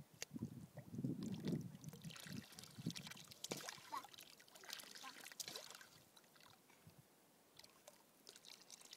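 Small splashes and trickling of lake water as a plastic cup is dipped into the shallows and lifted out, with faint crackly clicks.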